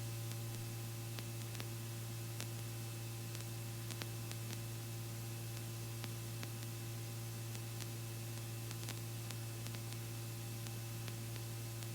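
Steady electrical hum and hiss on the helicopter's intercom audio line, with faint scattered ticks and no voice.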